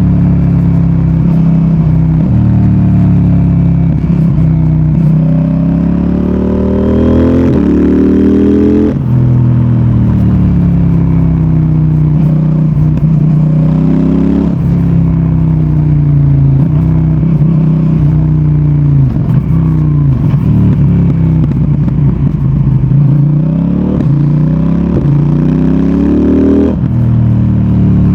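CFMOTO 800NK Advanced motorcycle's parallel-twin engine and exhaust under way, with revs repeatedly climbing and falling as the bike accelerates and slows. The pitch drops sharply about nine seconds in and again about five seconds later, as with a gear change or closing the throttle.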